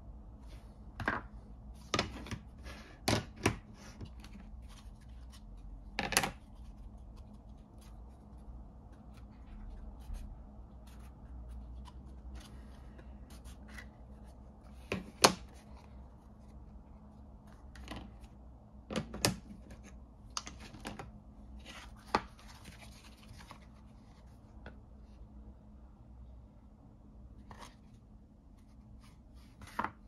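Handling noises of molded leather pieces and plastic molds on a cutting mat: irregular sharp taps and clicks, often a few seconds apart, with soft rubbing and scratching of leather in between.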